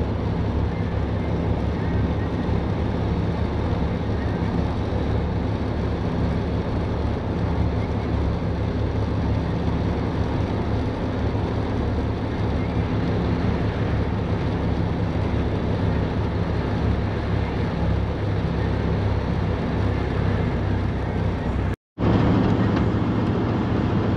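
Steady engine and tyre-on-road noise of a camper van cruising on a highway, heard from inside the cab, with a low hum running under it. The sound cuts out for a moment near the end and comes back slightly louder.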